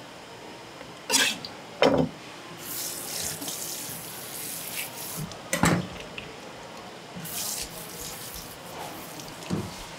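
Water running from a tap in short spells over a wet cutting board, with three sharp knocks on the board as fish fillets and a knife are handled.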